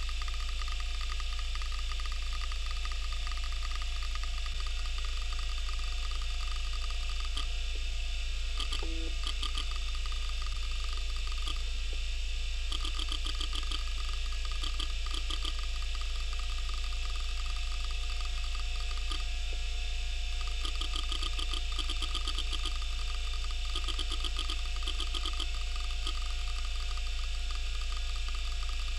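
Western Digital Caviar 2340 IDE hard drive running a surface scan: a steady spindle hum and whine, broken by several bursts of rapid head ticking. The ticking comes as the drive struggles over slow, weak sectors.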